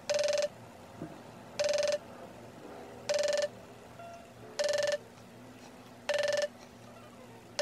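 iPhone FaceTime outgoing call ringing: a short electronic tone about half a second long, repeating five times at even gaps of about a second and a half. This is the ringback that signals the call has not yet been answered.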